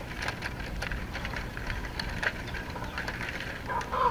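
Thin bamboo strips clicking and scraping against each other and the concrete floor as hands weave them into a basket's star-shaped base, over a steady low background noise. A brief, louder tonal sound comes near the end.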